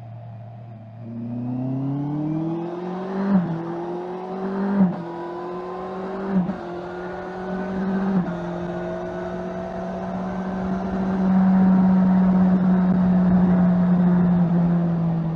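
Honda CBR650R's stock 649 cc inline-four engine accelerating from low revs through four quick upshifts about one and a half seconds apart. Each shift is a rising pitch that drops sharply with a brief bark as the Honda E-Clutch changes gear without a clutch lever. After the last shift the engine holds a steady cruise and gets louder about two-thirds of the way through.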